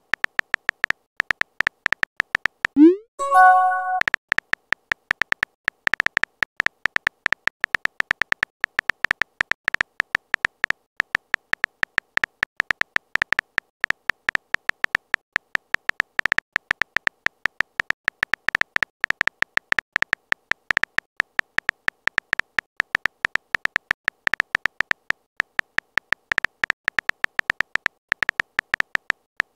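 Phone keyboard typing clicks from a texting-app animation, fast and evenly paced as a message is typed letter by letter. About three seconds in the clicks stop briefly for a short rising chime of a few stepped tones as a message is sent.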